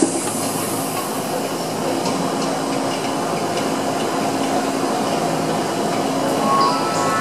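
Electronic backing music for a stage act: a dense, whooshing synthesizer texture over a low held drone, with a rising sweep beginning near the end.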